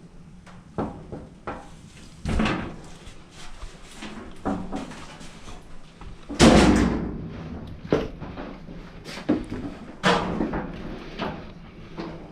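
Irregular knocks and thumps, with one loud bang about six seconds in, over a faint steady low hum.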